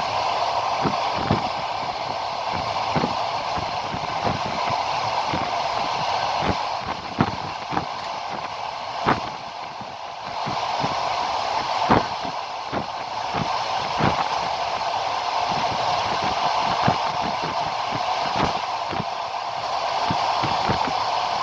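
Moving train running steadily, its wheels clacking over the rail joints in irregular knocks.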